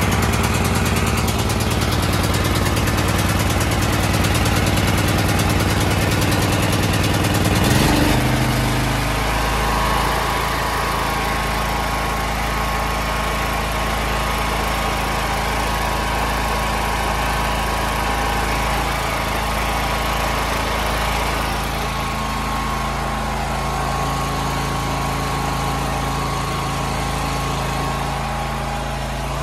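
Petrol generator engine running on its first start after a carburetor cleaning: it fires slowly and unevenly at first, then about eight seconds in the speed rises and it settles into a steady run with a faint whine.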